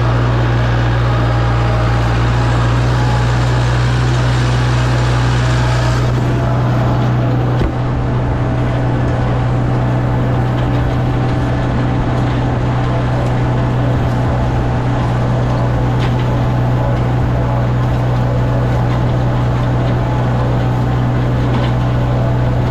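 Farm tractor engine running steadily at a constant working speed, with mechanical clatter over it that eases off about six seconds in.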